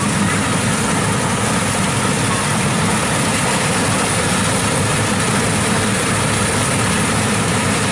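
Kubota DC-95 rice combine harvester running steadily close by as it cuts and threshes rice: a loud, even diesel engine and machinery noise.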